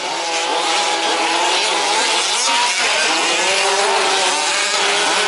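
Several 1/5-scale RC trucks' small two-stroke petrol engines running at once, revving up and down as they race around the track.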